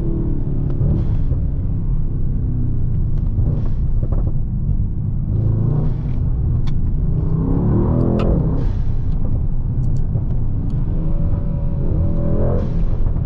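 Brabus Rocket 900's 4.5-litre biturbo V8 driving, its revs rising and falling with a rev peak about eight seconds in and another climb near the end, and a few short sharp cracks.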